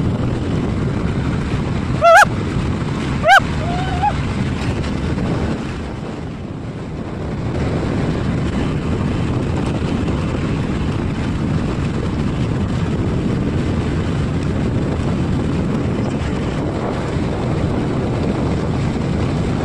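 Motorboat engine running steadily, with wind on the microphone and water washing past the hull. Two short, loud, high calls that rise and fall come about two and three and a half seconds in.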